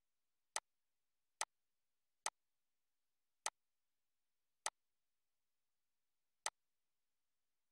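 Computer mouse clicking six times at uneven intervals, each a single sharp click, with silence in between.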